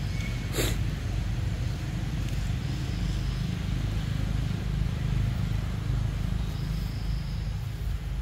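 Steady low outdoor rumble, with a single sharp click about half a second in.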